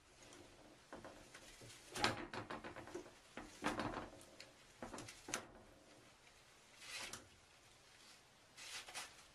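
Toilet paper roll spinning and rattling on a metal stand holder as a cat paws at it, with the paper rustling as it unrolls. It comes in about five separate bursts of pawing.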